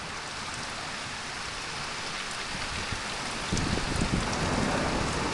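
Steady heavy rain, with a low rumble of thunder coming in about three and a half seconds in and building after a nearby lightning flash.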